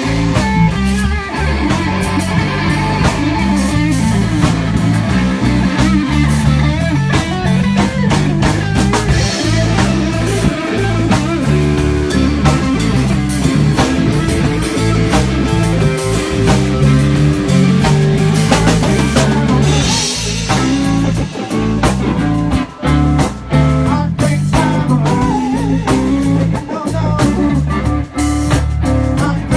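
Live rock band playing an instrumental passage with guitar, bass and drum kit, the drums keeping a steady beat. The band stops for a couple of brief breaks about two-thirds of the way in.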